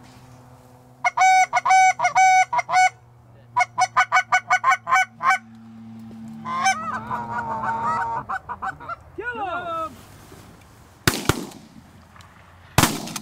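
Canada goose honking: two rapid runs of short, sharp honks and clucks, then longer, bending honks. Near the end, two shotgun shots about a second and a half apart.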